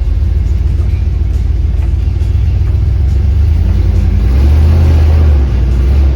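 Dodge 440 big-block V8 running while driving, swelling louder as it accelerates a little past halfway, then easing off near the end. The owner says the engine is missing.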